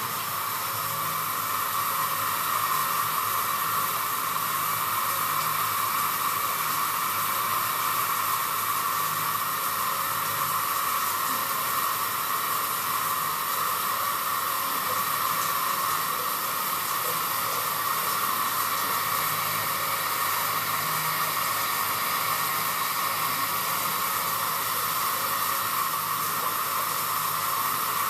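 Steady hiss of water spraying from a Waterpik NSL-653 handheld shower head, run without its flow regulator.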